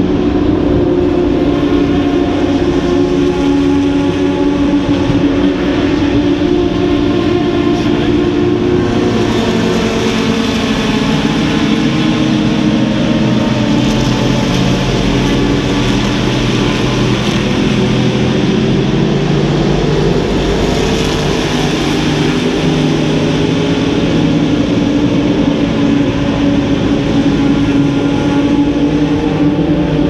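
Several race car engines running together on the circuit, a continuous overlapping drone whose pitches shift up and down.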